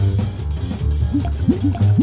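Cartoon background music with a steady bass line, and a few short wet-sounding blips in the second half.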